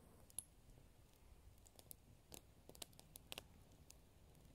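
Near silence broken by a handful of faint, sharp clicks at uneven intervals, several of them bunched in the middle.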